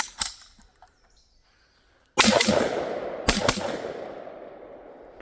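Gunshots: a sharp crack right at the start, then about two seconds in a loud shot whose rolling echo fades over about three seconds, with a second shot about a second after it.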